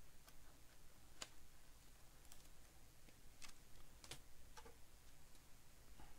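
Faint, irregular clicks and light snaps of baseball trading cards being flicked through and slid against one another by hand.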